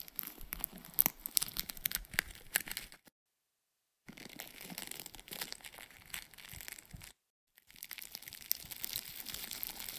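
Aluminium foil crumpled by hand: a dense crinkling crackle of fine clicks, cutting out briefly twice, about three and about seven seconds in. Short pieces of the recording, with varied pitch, are layered into an even texture that does not sound repetitive.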